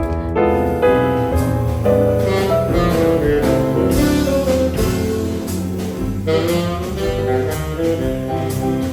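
Jazz music with saxophone over a bass line and piano.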